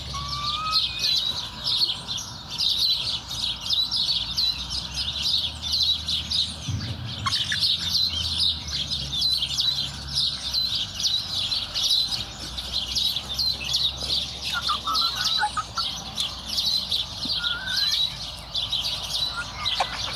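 A flock of young chickens peeping continuously, a dense chatter of short high chirps, with a few lower rising calls now and then.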